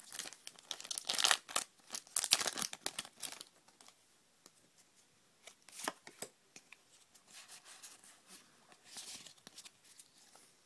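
Pokémon trading-card booster pack wrapper being torn open, crinkling in quick bursts for the first few seconds. After that come quieter rustles and a couple of sharp flicks as the cards are pulled out and leafed through by hand.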